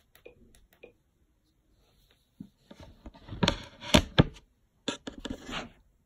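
Handling noise on a phone's microphone: a few faint ticks, then scraping, rubbing and several knocks as the phone is picked up from the surface it lay on, the loudest knocks about three and four seconds in.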